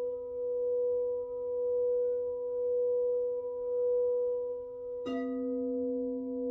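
Frosted crystal singing bowls ringing in a steady, sustained tone that swells and fades about once a second. About five seconds in, a bowl is struck with a mallet and a stronger low note joins the ringing.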